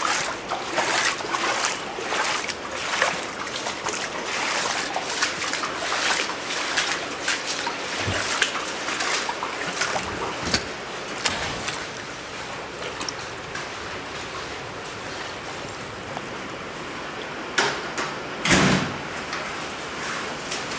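Footsteps wading through ankle-deep floodwater, splashing about twice a second, then easing off after about twelve seconds. Two sharp knocks about three seconds before the end.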